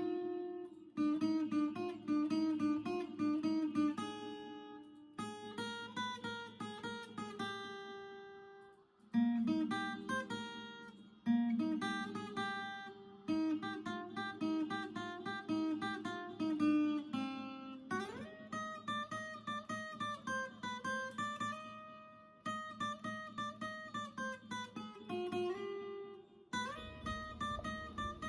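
Background music on acoustic guitar, plucked and strummed, with short breaks between phrases.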